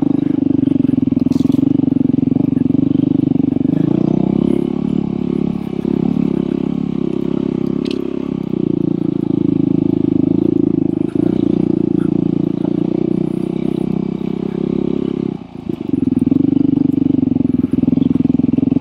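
Off-road dirt bike engine running under way on a trail. The note rises about four seconds in, dips briefly about fifteen seconds in, then picks up again.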